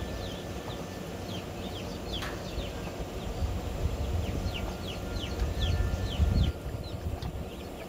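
Birds calling: a run of short, high chirps, each falling in pitch, repeated over and over, over a low rumble that swells a little after six seconds in.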